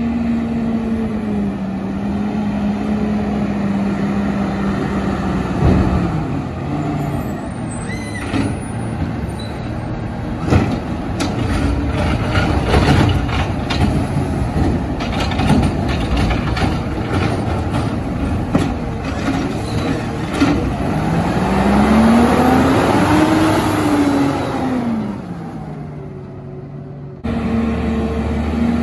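Automated side-loader garbage truck at work: the diesel engine running, then a run of sharp clanks and bangs as a cart is handled and dumped into the hopper. After that the engine speeds up and drops back again.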